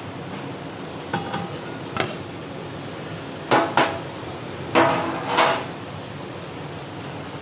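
Metal kitchenware clanking: a few scattered sharp knocks and clatters, the loudest two pairs in the middle, some ringing briefly.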